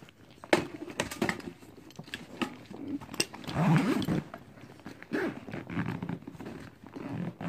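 Survival gear being packed back into a fabric backpack: rustling, with irregular clicks and knocks as items are handled and pushed in, and a louder stretch about three and a half seconds in.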